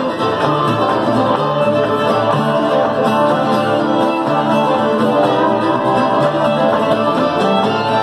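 Old-time string band playing a fiddle tune live at a steady pace: two fiddles carrying the melody over strummed acoustic guitar and other plucked string backing.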